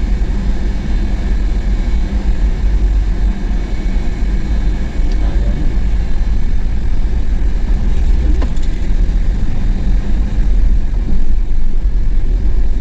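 Steady low rumble of a car in slow traffic, heard from inside the cabin: engine and tyre noise on a rough road surface.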